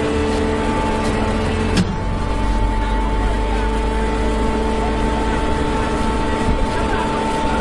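Hydraulic straw baler running: a steady machine hum from its motor and hydraulic pump, with a sharp knock about two seconds in where the hum changes tone.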